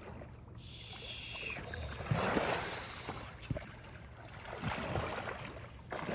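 A large hooked white sturgeon thrashing and splashing at the river surface close to the bank, in two noisy swells of splashing.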